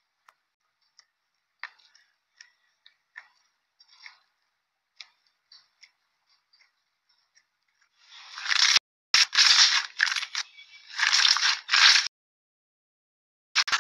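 Slime being stretched and pressed by hand. At first there are only scattered small clicks and pops of air pockets in the slime. From about eight seconds in come loud, rough squishing sounds in several stretches of about a second each as it is kneaded.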